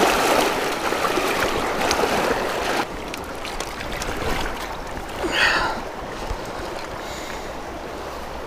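Water splashing around a landing net as a netted grayling thrashes, stopping suddenly after about three seconds, then the steady rush of the shallow river current. A brief higher-pitched sound comes about five seconds in.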